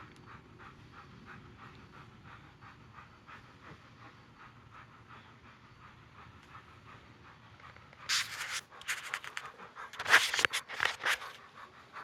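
A dog panting quickly and steadily, about three breaths a second, the stress panting of a dog frightened by high winds. Near the end come a few seconds of louder scuffling noise.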